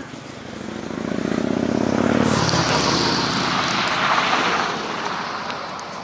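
A motor vehicle passing by: engine hum and road noise grow louder over the first couple of seconds, peak in the middle, then fade away.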